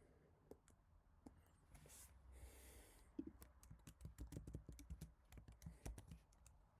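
Typing on an HHKB Type-S keyboard's Topre switches: a quick run of soft keystrokes starting about three seconds in, after a brief soft hiss.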